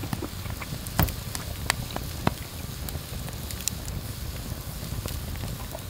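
Wood fire crackling in a fire pit under a grill grate, with scattered sharp pops over a steady low rumble; the loudest pop comes about a second in, with two more over the next second and a half.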